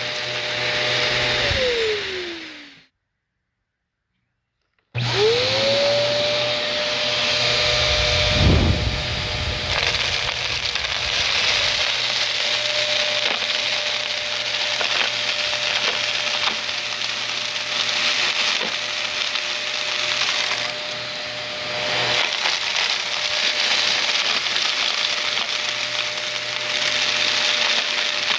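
Vacuum cleaner motor running with a steady whine, then switched off and winding down. After about two seconds of silence it is switched on again, spins up and runs on, sucking up crunchy debris with constant crackling and rattling, and there is a low thud about eight seconds in.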